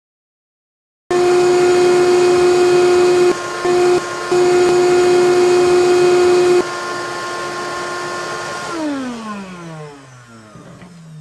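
Haussmann shop vacuum's electric motor running, first loud with a strong steady whine from its worn motor bearing, dipping briefly twice. After a cut it runs noticeably quieter on the new greased bearing, then is switched off and winds down with falling pitch.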